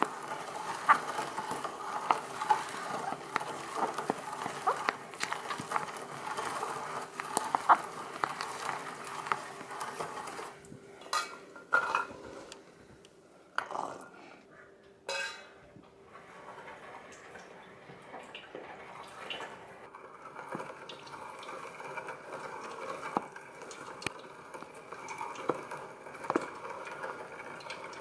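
Vintage hand-cranked food chopper grinding whole cranberries, with many quick small popping and squishing clicks as the berries are crushed. The sound thins out partway through, with a few separate metal knocks and then only scattered light clicks.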